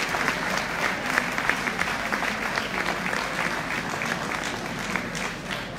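Audience applauding, many hands clapping steadily and easing off slightly near the end.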